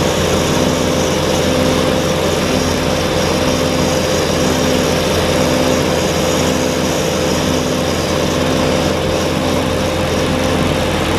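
Kubota BX23S compact tractor's three-cylinder diesel engine running steadily under load while driving a front-mounted chain-driven snowblower, with a regular pulse about three times every two seconds.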